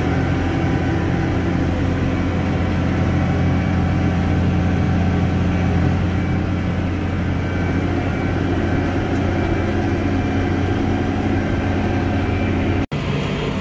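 A vehicle engine running steadily at a constant speed. It cuts off abruptly near the end.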